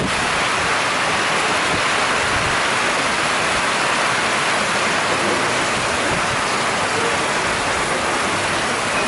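Heavy rain pouring steadily onto waterlogged ground and puddles: a dense, even hiss that holds level throughout.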